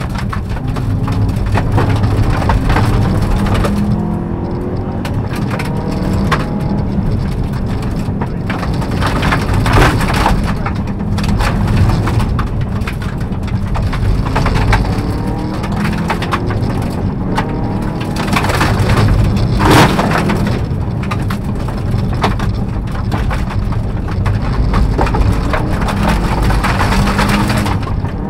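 Inside a Subaru Impreza rally car on a gravel stage: the turbocharged flat-four engine revs hard, its pitch climbing and dropping again and again through the gear changes. Gravel and stones crack and rattle against the underside of the car, with a heavy road rumble underneath.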